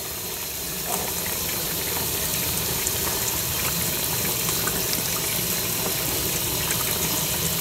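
Hot water and melted beeswax running steadily out of a wax-rendering kettle's drain, slightly louder from about a second in as the filter tube is pulled out, with a few faint ticks.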